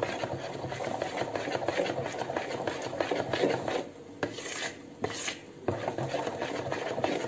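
Thick pancake batter being stirred and beaten by hand in a plastic bowl: a rapid, continuous scraping, easing off for a moment about four seconds in.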